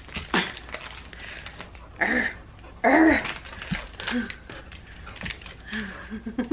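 A woman's brief laughs and exclamations as a puppy plays at a plush toy, the loudest about two and three seconds in.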